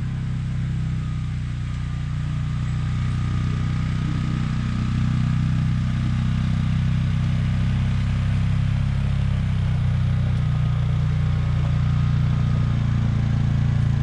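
Polaris 570 ATV engine running steadily at low revs, getting a little louder about five seconds in.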